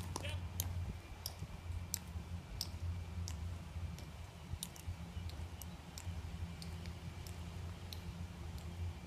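Crisp clicks of honor guard dress shoes striking pavement in a steady marching cadence, roughly one step every half to three-quarters of a second, over a steady low hum.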